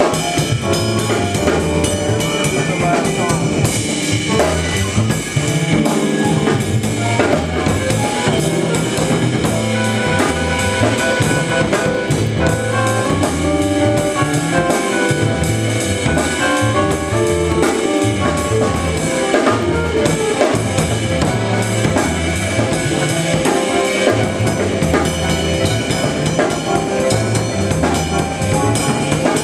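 Live jazz-funk band playing: a drum kit keeps a steady groove while electric keyboards play chords and lines over a bass line that steps between low notes.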